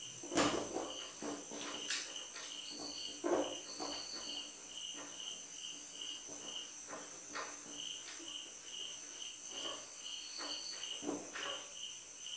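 A cricket chirping steadily, about three chirps a second. Over it, a whiteboard duster wipes the board in several short rubbing strokes, the loudest about half a second in and about three seconds in.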